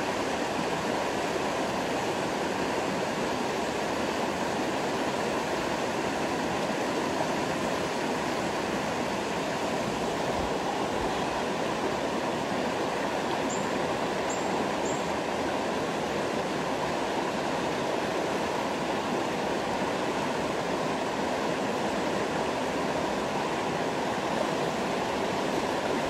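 Shallow river water rushing steadily over rocks.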